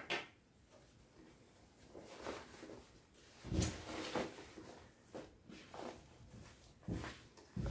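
Cotton fabric being handled and slid across a wooden tabletop, in short soft rustles and scrapes. The strongest come about halfway through and near the end.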